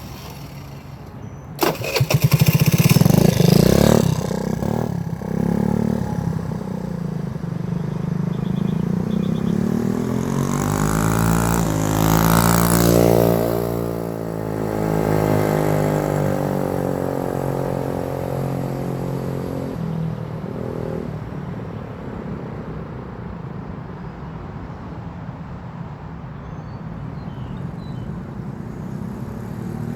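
Small vehicle engine starting with a loud burst about two seconds in, then running as it drives past: its pitch climbs to a peak about halfway through, falls away, and the sound fades into the background.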